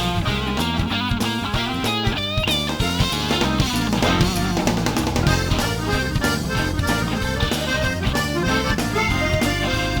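Instrumental background music with a steady drum beat.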